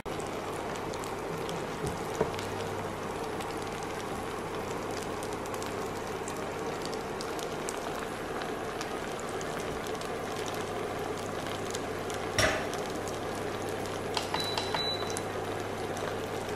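Potato crepe batter sizzling gently in an oiled non-stick pan on low heat, a steady fine crackle over a low hum, with one sharp knock about twelve seconds in.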